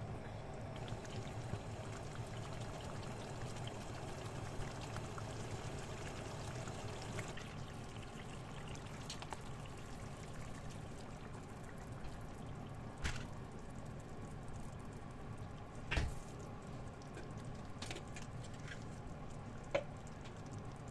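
Chicken curry sizzling and simmering in a frying pan as liquid is poured in, with a few sharp clinks of a utensil against the pan.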